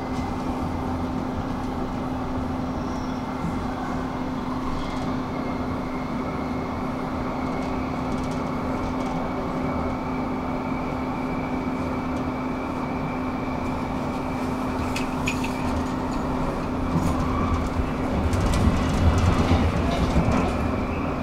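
Roslagsbanan electric light-rail train running, heard from inside the carriage: a steady rumble of wheels on the track with a constant whine. It grows louder and rougher for a few seconds near the end.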